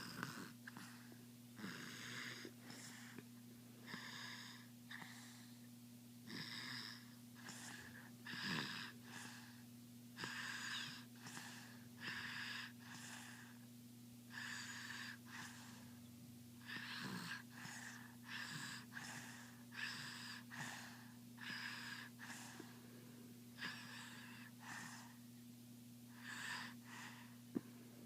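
A person snoring in a steady rhythm, one breath about every two seconds.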